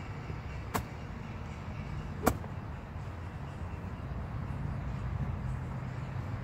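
Two sharp clacks of a golf ball being struck, about a second and a half apart, the second louder, over a steady low rumble.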